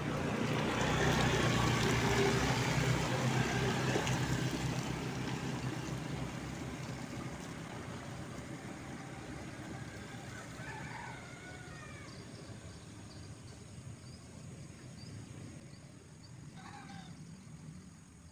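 A motor vehicle's engine passing close by, loudest in the first few seconds, then fading slowly as it moves away. A few faint bird calls follow in the second half.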